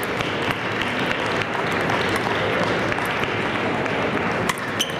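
Audience applauding in a hall, with a few sharp clicks near the end.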